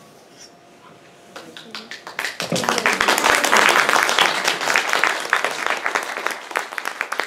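Small audience applauding: a few claps about a second and a half in, swelling into full applause, then thinning to separate claps near the end.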